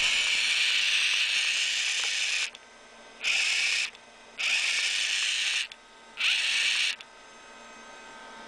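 Four bursts of hissing, each starting and stopping abruptly, the first about two and a half seconds long and the others shorter. A steady high whine from the opened NIKKEY MIG-220 welding machine runs underneath.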